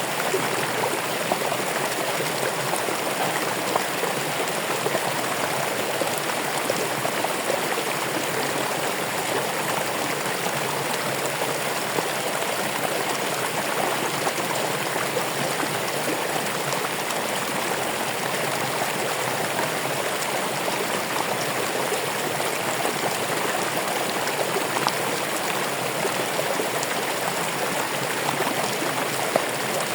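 Running water flowing steadily: an even, continuous rush and splash with small brief spikes now and then.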